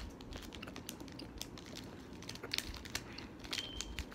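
Faint, scattered clicks and smacks of a mouth chewing a chewy Airheads taffy candy close to the microphone.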